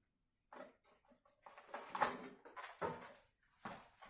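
Irregular small clicks, knocks and short scrapes of hand tools and small parts being handled while a smaller screwdriver is fetched.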